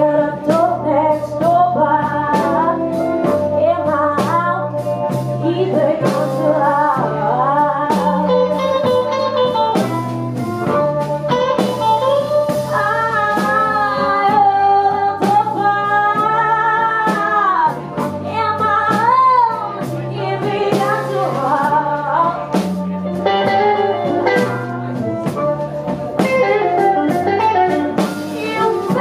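Live blues band playing a slow blues: electric guitar, bass guitar and drums, with a woman singing the lead line.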